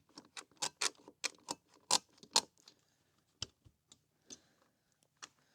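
Clamps of a chainsaw crosscut jig being tightened onto a timber beam: a quick run of sharp clicks over the first two and a half seconds, then a few scattered ones.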